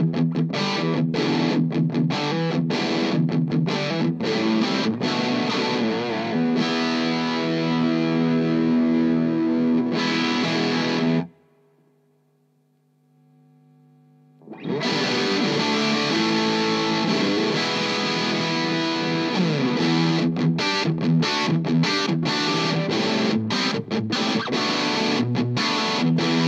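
Electric guitar played through an Amptweaker Fat Rock distortion pedal into an amp: heavily distorted riffs broken by short, sharp stops, then held chords. About eleven seconds in the playing cuts off, leaving only a faint ringing tone for about three seconds, before the choppy riffing starts again.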